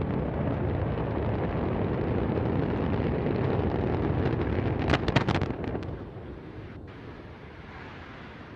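Antares rocket exploding just after liftoff and falling back onto its launch pad: a deep, continuous rumble, a quick burst of sharp cracks about five seconds in, then the rumble dies away.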